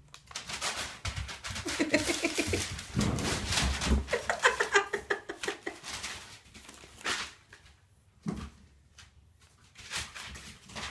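Puppies playing on a newspaper-covered floor: the paper rustles and crackles, with puppy vocalising in play mixed in, busiest in the first five seconds. After that come only a few scattered crackles.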